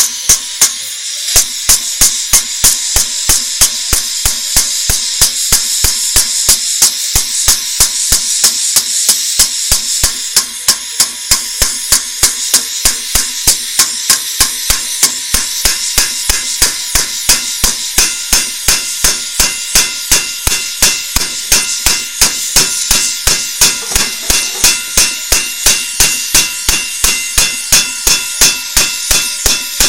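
Hand hammer striking torch-heated metal in a fast, steady rhythm of about three blows a second, over the steady hiss of a gas torch flame.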